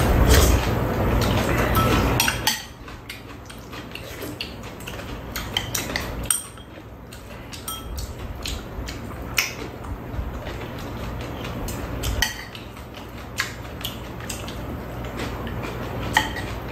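Metal spoons and chopsticks clinking and scraping against bowls and a steel tray during a meal, in scattered light clicks. A steady background hum is louder for the first couple of seconds, then drops away.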